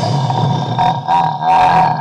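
Harsh, distorted growling with a wavering pitch, from an extreme noise-music recording, without drums. It breaks off briefly twice.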